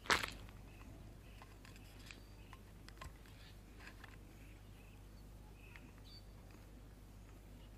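Orange cat licking a squeeze-tube treat held out by hand: faint scattered wet licking clicks. A short, sharp rustle right at the start is the loudest sound.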